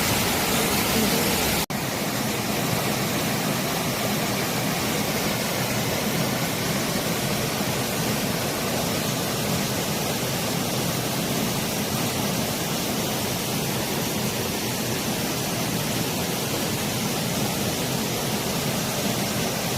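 Mountain valley stream rushing, a steady, even sound of flowing water, with a brief cut about two seconds in after which it carries on slightly changed.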